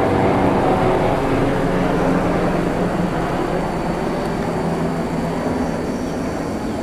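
SEPTA electric multiple-unit commuter train running along the track: a steady hum of traction motors and wheels on rail that slowly eases off.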